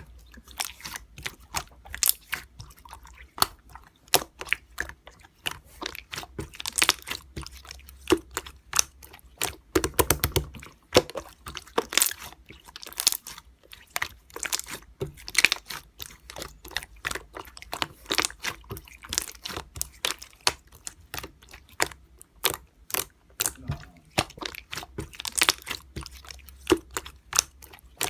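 Slime being pressed and squished by hand, giving a rapid, irregular run of sticky clicks and pops.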